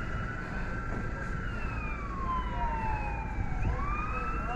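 Emergency vehicle siren wailing, its pitch gliding slowly down and then sweeping back up near the end, over a steady low rumble.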